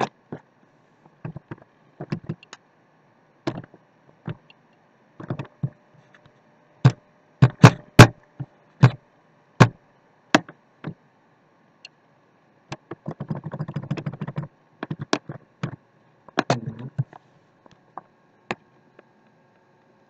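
Irregular sharp clicks and taps of a computer mouse and keyboard, with a brief rustling patch about two-thirds of the way through.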